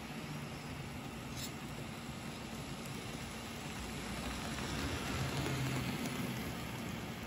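N-scale model train running on the track, a low motor hum with the noise of its wheels, growing louder as the locomotives pass close by about five seconds in.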